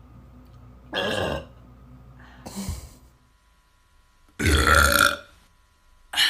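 A string of deliberate human burps: a short one about a second in, a smaller one a little later, the longest and loudest about four and a half seconds in, and another starting right at the end.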